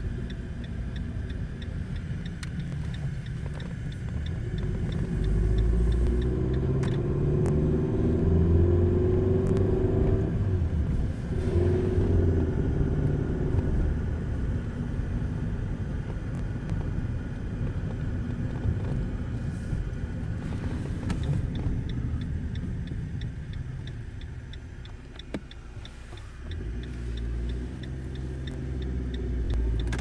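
Car interior noise while driving: engine and road rumble, louder and with a clearer engine note as the car accelerates several seconds in and again near the end, with a light regular ticking through much of it.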